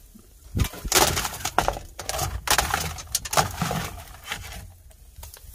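Crunching and crackling of dry leaves and debris in irregular bursts, lasting about three seconds.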